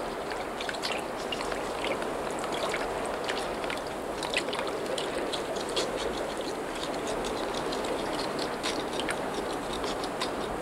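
A beaver chewing on a branch: quick, irregular crunching clicks of its teeth on the wood over a steady hiss.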